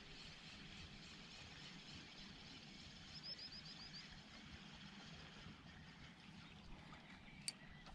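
Near silence: faint outdoor ambience, with a quick run of about seven high chirps a little over three seconds in and a single sharp click near the end.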